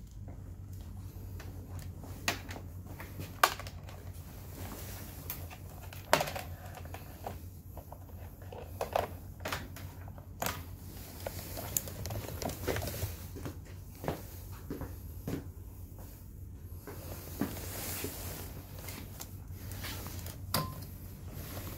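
Irregular sharp clicks and light knocks of hands handling a scooter's plastic handlebar cover, switch and wiring connectors, over a steady low hum.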